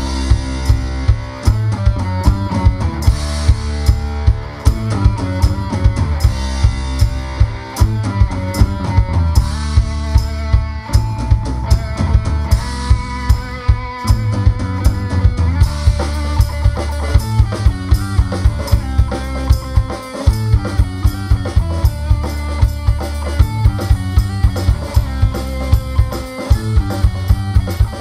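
Live rock band playing: a drum kit keeping a fast, steady beat with kick drum and snare, under electric guitar and bass.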